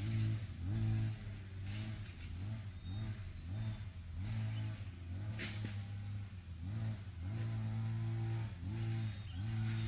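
A small engine running, its pitch repeatedly dropping and rising back up, more than once a second at first and in longer stretches later.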